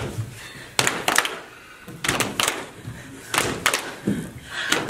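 A group clapping hands in time, short clusters of sharp claps roughly every second and a half.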